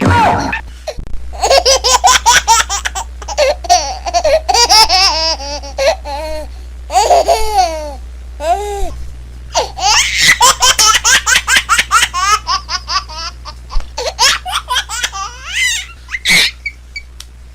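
High-pitched laughing in long runs of quick, pulsing bursts, with short breaks between them.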